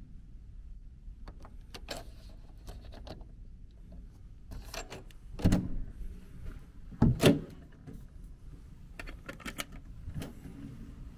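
Hotel room door with an electronic card-key lock being unlocked and opened: a run of small clicks and rattles from the lock and lever handle, with two louder clunks about halfway through and more light clicks near the end.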